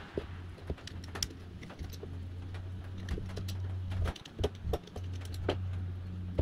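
Screwdriver and loose metal parts clicking and tapping against the burner of an old brass blowtorch being taken apart by hand, over a low steady hum that drops out briefly a little past the middle.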